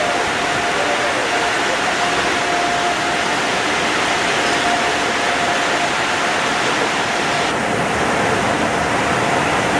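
Touchless car wash's overhead blower dryer running: a loud, steady rush of air with a steady whine under it.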